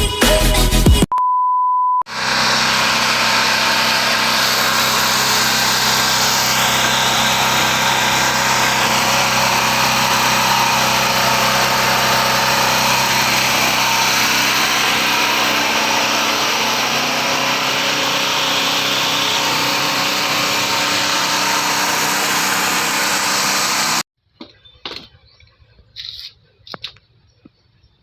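A short steady beep, then a Predator 4000 portable gasoline generator's engine running steadily for about 20 seconds before cutting off suddenly, followed by a few faint clicks.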